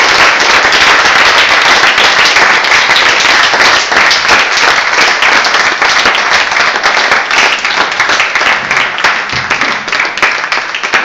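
Audience applauding: dense clapping from many hands, thinning a little near the end.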